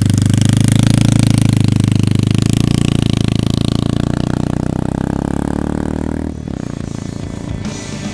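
Royal Enfield Continental GT scrambler's 535 cc single-cylinder engine pulling away and riding off, slowly fading with distance, through a straight-looking exhaust with internal baffling. It cuts off suddenly about six seconds in.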